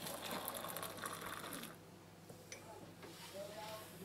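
Hot water poured from a kettle into a mug onto a tea bag: a steady splashing hiss for about a second and a half that then stops.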